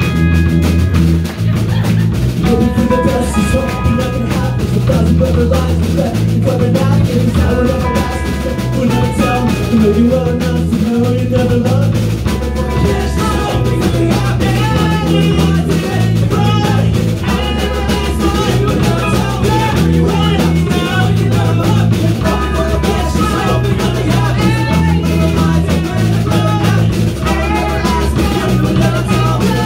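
Live rock band playing a punk/emo cover: distorted electric guitar, bass guitar and drum kit, with a male lead singer's vocals more prominent in the second half.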